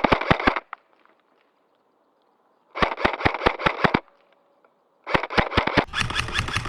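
Airsoft gun firing three short full-auto bursts of rapid, evenly spaced shots, with quiet gaps between them.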